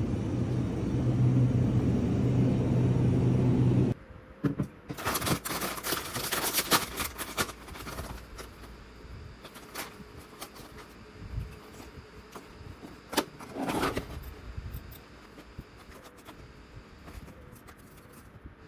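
A steady low hum like a vehicle running, which cuts off abruptly about four seconds in; then scattered clicks and rustling of objects being handled.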